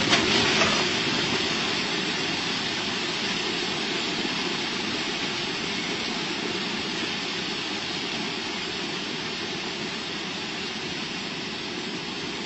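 A moving train's steady rumbling noise, slowly fading, with a few sharp knocks in the first second.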